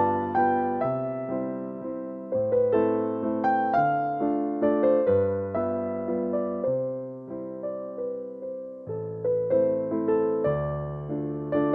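Background music: a gentle electric piano playing a steady stream of struck notes over held bass chords.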